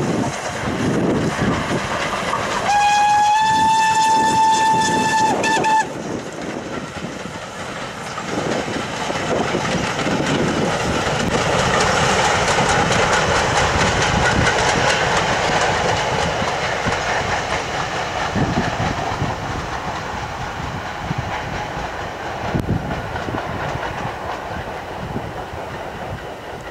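Steam locomotive whistle blown once for about three seconds, a steady note that steps up slightly in pitch just after it starts. The train of coaches then passes, the wheels clattering over the rail joints, and the sound fades away near the end.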